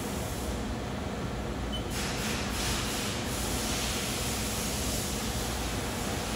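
Haas VF-2 CNC vertical machining center running while its table traverses slowly along the X axis: a steady mechanical hum, with a hiss that grows louder about two seconds in.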